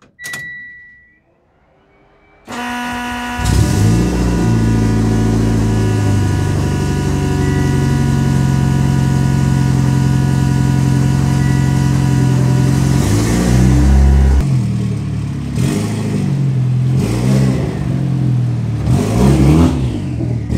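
Mitsubishi Lancer Evolution X's turbocharged 2.0-litre four-cylinder being started: a short beep, about a second of starter cranking, then the engine catches and idles steadily and loudly. From about fourteen seconds in the engine note rises and falls repeatedly as the car is driven off at low revs.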